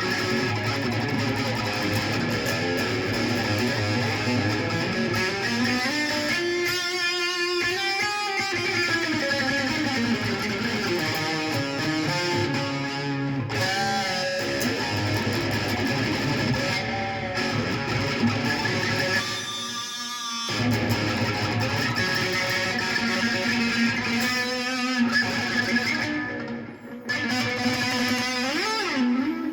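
A stringed instrument played solo in practice: sustained notes with sliding pitch bends, running on continuously, with a brief drop in level near the end.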